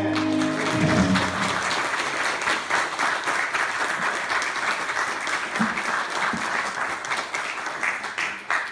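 The final held chord of a sung song with backing track dies away about a second in, and the congregation breaks into applause; the clapping thins into scattered claps near the end.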